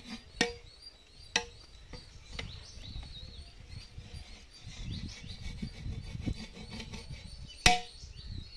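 Metal ladle knocking against a large aluminium cooking pot, three sharp clangs with a short ring, the loudest near the end, between soft scraping and shuffling of rice being stirred.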